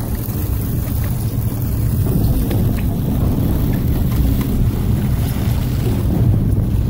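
Steady low rumble of a fishing boat's engine, mixed with wind buffeting the microphone and water churning along the hull.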